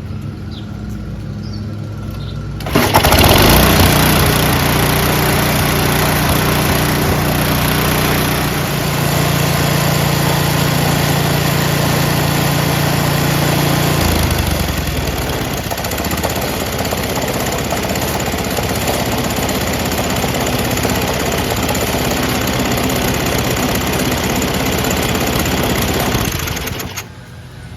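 Tecumseh 5.5 HP Snow King engine on a two-stage snowblower running. About three seconds in the auger is engaged and the machine gets much louder as the auger and impeller spin; the repaired auger engagement cable is working. The sound eases slightly about halfway and drops off suddenly near the end as the auger is released.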